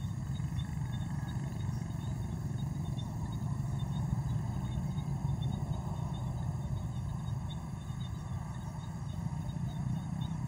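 A steady, fluctuating low rumble with no distinct events.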